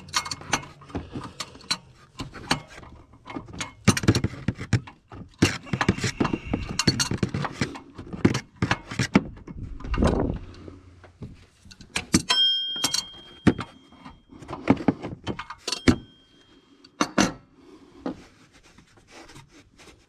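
Fan clutch being turned by hand and unthreaded off the water pump shaft: an irregular run of clicks, knocks and scrapes of metal and plastic, with one ringing metal clink a little past halfway.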